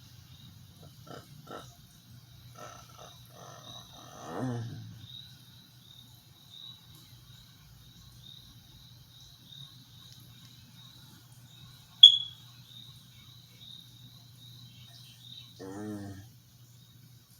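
A sleeping person's short groaning vocal sounds, the strongest about four seconds in and another near the end, over a steady low hum and a faint high chirp repeating about twice a second. A sharp click about twelve seconds in.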